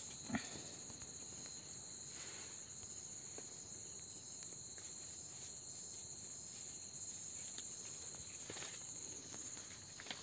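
Steady, high-pitched chorus of field insects such as crickets, with a single sharp click about a third of a second in and a few faint ticks later.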